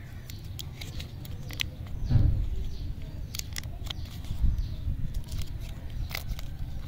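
Lollipop wrapper crinkling and crackling in irregular bursts as it is peeled open by hand, over a steady low rumble, with a dull bump about two seconds in.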